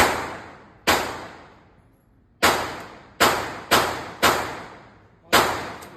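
Seven handgun shots fired at an irregular pace, each a sharp crack that rings out in a long echo off the indoor range's walls before the next.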